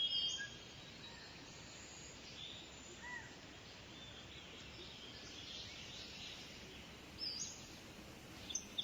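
Birds chirping over a faint steady background hiss, with louder bursts of high chirps at the start and again about seven seconds in.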